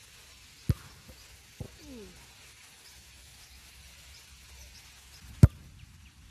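A football struck twice, two sharp thuds about five seconds apart, the second much louder. A weaker knock comes in between.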